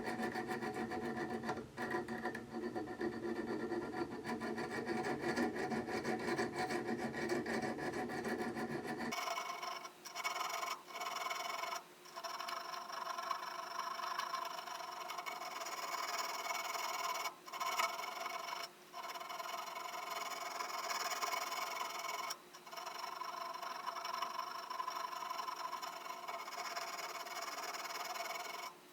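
Fine 600-grit barrette file rubbing back and forth over the steel cutting surfaces of a wood auger bit, in a steady run of rasping strokes broken by a few short pauses.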